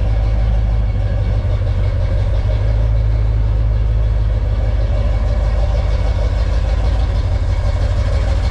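Chevrolet K30 squarebody wrecker's gasoline engine idling steadily while its EFI is tuned and its ignition timing is set.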